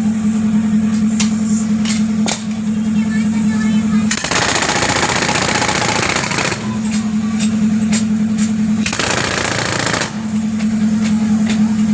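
Pneumatic jackhammer breaking up a concrete road surface, hammering in fast, steady, buzzing bursts. Twice the hammering gives way to a steady rushing noise for a couple of seconds before it resumes.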